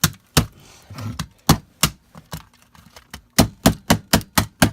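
Repeated sharp knocks of a tool striking a camcorder's plastic and metal body: a few spaced blows, then, past the middle, a quick steady run of about four a second.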